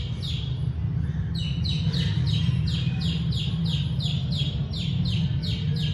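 A lone chick peeping: short falling peeps repeated about three times a second, starting after a short pause, over a steady low hum. This is the persistent calling of a chick left on its own.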